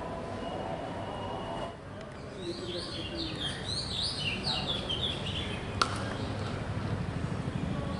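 Birds chirping in quick runs of short, high, falling notes over a steady outdoor background, with a single sharp crack about six seconds in, a cricket bat striking the ball.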